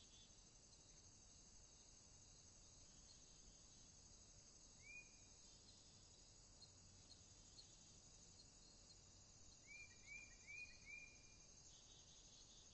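Faint outdoor ambience of an insect chorus, crickets trilling steadily in a high register, with a bird giving one short chirp about five seconds in and four quick chirps near the end.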